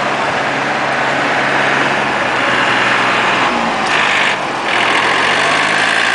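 A motor vehicle engine idling steadily close by, with a brief change in the sound about four seconds in.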